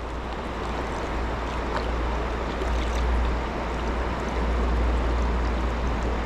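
Steady rush of flowing river water, an even wash of noise with no distinct splashes.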